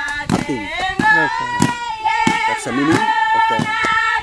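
A group of women and girls singing a chant in unison with long held notes, over sharp claps at a steady beat of a little under two per second.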